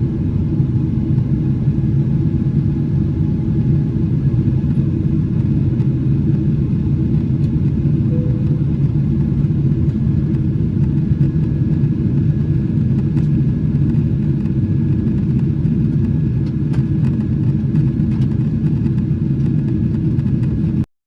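Steady cabin rumble of a Boeing 777-300ER under way, its GE90 engines and the airflow heard from inside the passenger cabin, low and even with no change in pitch. It cuts off suddenly near the end.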